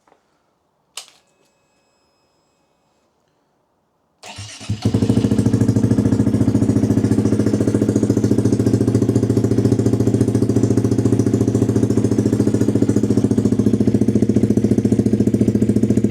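Honda Monkey 125 single-cylinder engine through a Scorpion titanium exhaust with the baffle removed: after a short click about a second in, the starter cranks briefly about four seconds in, the engine fires and settles into a loud, steady idle with a fast even pulse. It is loud enough at idle to clip the microphone.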